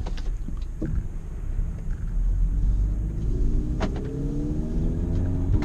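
Volkswagen GTI's turbocharged four-cylinder engine pulling under light throttle with a low rumble. Its note rises steadily for about three seconds and drops back near the end, with a few sharp clicks along the way.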